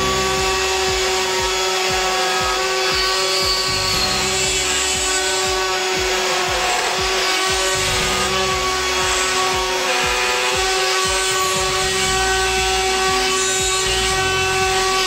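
Electric plunge router running at full speed and milling a recess for a concealed hinge into wood through a template. It gives a steady high whine over the rough noise of the cut.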